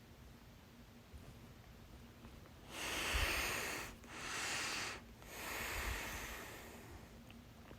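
A person with hiccups breathing heavily: three long, noisy breaths in a row, starting about three seconds in.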